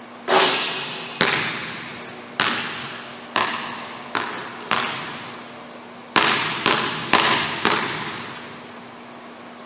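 A basketball bouncing on a hardwood gym floor, each hit ringing out in the gym's echo. The loudest hit comes just after the start as the shot comes down, followed by five bounces over about four seconds, then after a pause four quick dribbles at about two a second.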